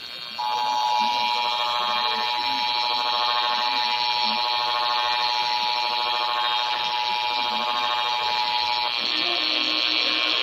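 Emergency Alert System two-tone attention signal, a steady dual tone just under 1 kHz, received over the air with radio hiss. It starts about half a second in and cuts off after about eight and a half seconds, announcing a warning that is about to be read.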